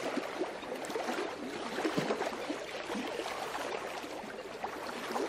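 Water gently lapping and trickling: a steady wash of noise dotted with many small gurgling ticks.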